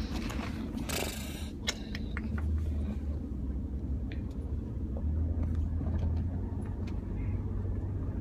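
Steady low road and engine rumble of a moving car, heard from inside the cabin, with a brief scuffing noise about a second in.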